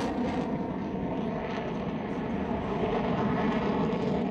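Steady jet engine noise from an F-22 Raptor's twin Pratt & Whitney F119 turbofans as the fighter maneuvers overhead.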